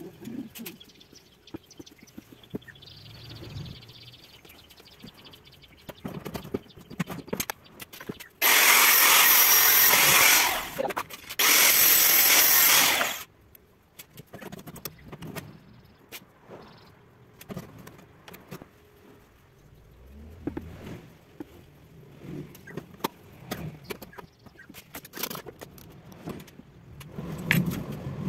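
Two loud bursts of crackling arc from a stick (electrode) welder tacking the wheelbarrow's steel handle frame, one about two and a half seconds long and a second, shorter one right after, about a third of the way in. Around them, scattered clinks and knocks of steel parts being handled and positioned.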